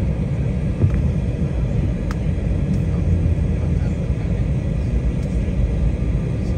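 Steady low rumble inside the cabin of an Embraer 190 airliner taxiing: its General Electric CF34 turbofan engines running at low power and the wheels rolling on the pavement. A couple of faint clicks sound about one and two seconds in.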